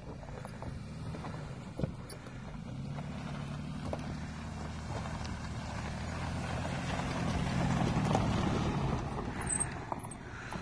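Jeep Liberty SUV's engine running at low speed as it crawls up a rocky dirt trail, getting louder as it comes close and passes by, with tyres crunching over loose stones and a couple of sharp knocks of rock.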